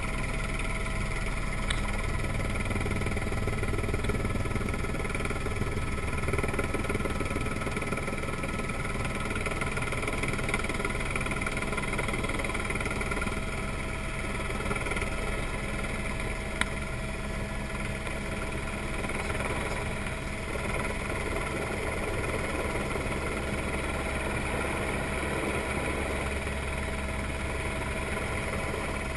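Helicopter engine and rotor noise heard on board in flight: a steady drone with several held tones over a low rumble, unchanging throughout.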